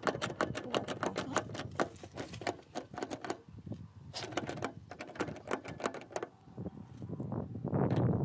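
Rapid irregular clicking and clacking, several clicks a second, from a pump starter's contactor being handled and pressed, with a pause midway. Near the end comes a louder rumbling rustle.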